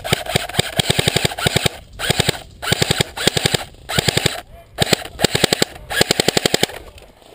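Airsoft Thompson submachine gun firing in repeated short bursts, a rapid, even rattle of shots broken by brief pauses, about eight bursts in all.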